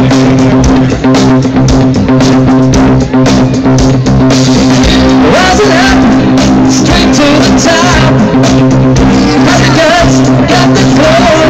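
Live rock band playing loud: electric guitars holding chords over a drum kit's steady beat, with a wavering higher melody coming in about five seconds in.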